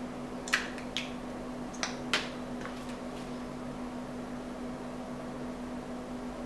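Lips smacking, five short wet clicks in the first three seconds as freshly applied lip colour is pressed and parted, over a steady low hum of room noise.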